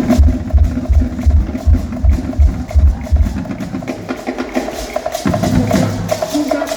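Live band playing a percussion-driven groove, with a steady, heavy bass-drum beat of roughly three strokes a second that drops out about halfway through while the rest of the band plays on.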